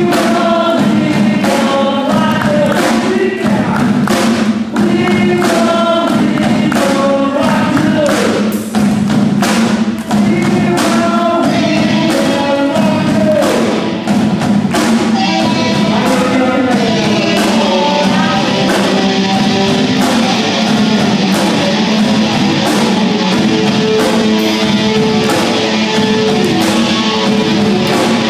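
A rock band playing live: a woman singing lead over drums, guitars and keyboard. About halfway through, the band gets fuller and brighter.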